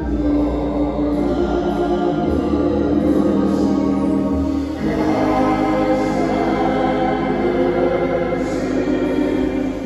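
Church organ playing slow sustained chords with a deep bass note, with voices singing along as sung music of the Mass. The chords change a couple of times, about two and five seconds in.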